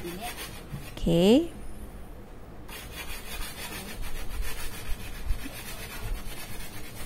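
Steady dry rubbing and scratching that starts about three seconds in, after a single spoken "okay" about a second in.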